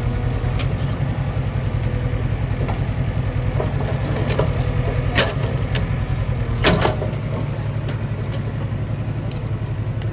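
JCB 3DX backhoe loader's diesel engine running steadily, with a few sharp knocks from the machine, the loudest about five and seven seconds in.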